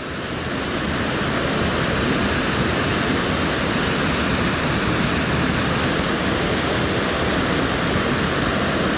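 Storm runoff rushing down a rocky canyon wash, a steady, fairly loud rush of flowing water that grows a little louder in the first second.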